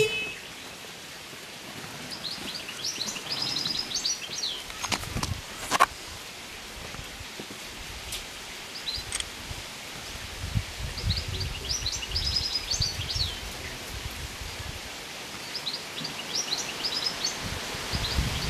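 A songbird sings quick, high twittering phrases three times, several seconds apart, over outdoor ambience. There are a couple of faint clicks and a stretch of low rumble midway.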